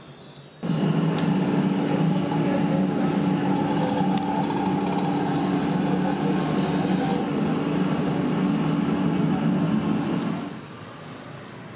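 A steady mechanical hum, like an engine or motor running at a constant speed, with one held low tone. It starts abruptly about half a second in and drops away shortly before the end.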